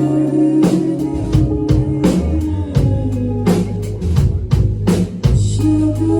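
Live rock band playing an instrumental passage without vocals: electric guitar and bass over a drum kit, with regular drum hits.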